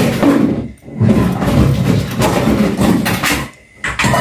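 Wire whisk beating eggs and sugar by hand in a small ceramic bowl, its wires rattling fast against the bowl, with a short pause about three and a half seconds in.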